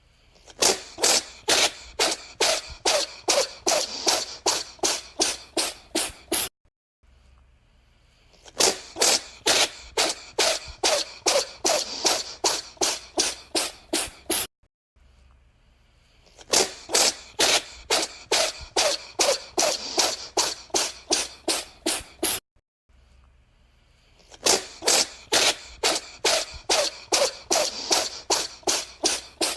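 A cat sneezing in rapid fits of about three sharp sneezes a second, each fit lasting some six seconds, with pauses of about two seconds between fits; four near-identical fits.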